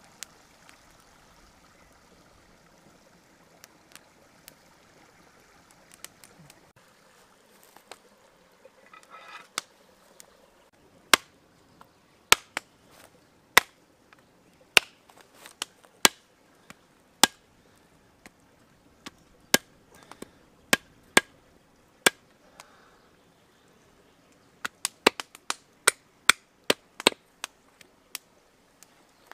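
Hatchet chopping through a rack of lamb ribs on a wooden stump. The sharp strikes start about a third of the way in at roughly one a second, then come in a quicker run of blows near the end.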